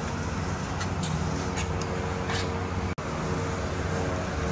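Steady low mechanical hum with a few steady tones in it, with a few faint knife strokes on a plastic cutting board in the first half. The sound drops out for an instant about three seconds in.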